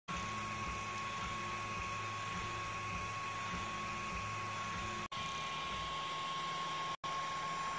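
Faint steady machine hum and hiss with a thin, steady high whine, cutting out briefly twice, about five and seven seconds in.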